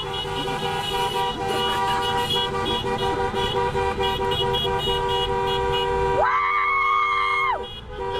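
Many vehicle horns honking at once in a steady, overlapping chorus of held tones. One horn sounds a louder blast for about a second and a half, starting around six seconds in.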